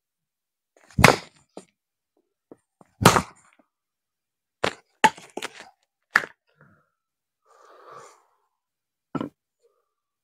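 A series of sharp cracks at irregular intervals: two loud ones about one and three seconds in, a quick cluster of smaller ones around five seconds, and a last one near the end.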